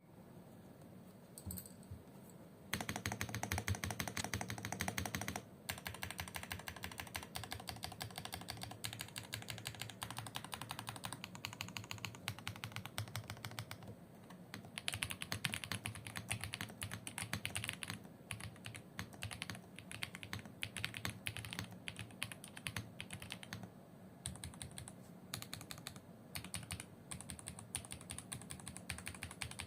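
Fast typing on an RK R75 mechanical keyboard with TTC Steel linear switches: a dense, continuous clatter of keystrokes that starts a few seconds in, loudest at first, with a couple of brief pauses.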